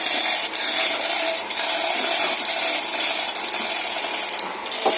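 Abrasive rubbing on metal engine parts during the overhaul of an Isuzu 6BG1 diesel: a steady, loud, high-pitched hiss broken by short pauses every second or so.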